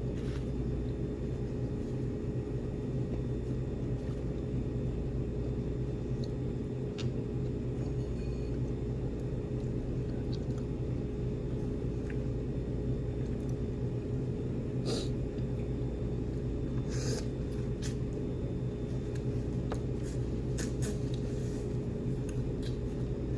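Steady low room hum with a constant tone in it, over which a few short clicks and smacks of eating and utensils come and go.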